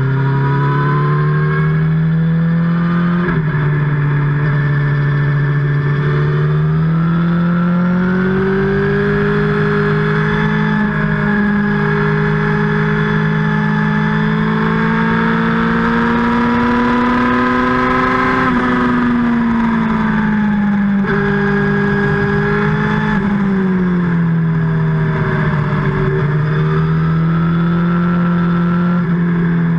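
Kawasaki sport motorcycle engine running at road speed, heard close to its exhaust. Its note climbs slowly, drops sharply about two-thirds of the way through as the rider rolls off the throttle, then rises again near the end.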